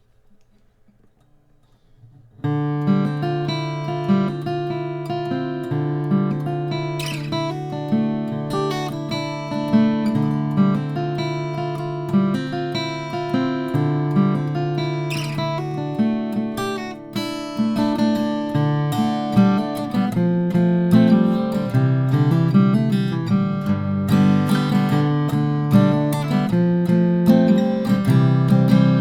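Martin 0012-28 acoustic guitar played solo, starting about two seconds in: chords and single notes ringing out, recorded dry with no EQ or compression.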